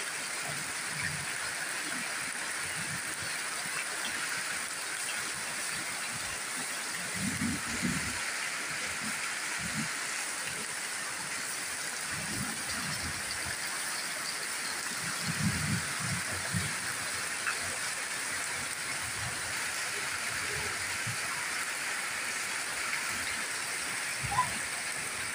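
Steady heavy rain falling and pouring off the roof edges in a continuous hiss. A few low thuds come through it now and then.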